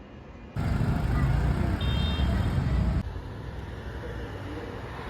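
Street traffic: a vehicle's low engine and road rumble, loud for about two and a half seconds from about half a second in, then cutting abruptly to quieter steady traffic noise.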